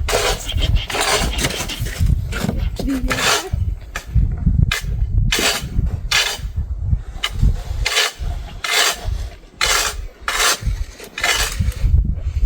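Snow shovels scraping along a snowy pavement in repeated strokes, roughly one every half second to a second, with a low rumble underneath.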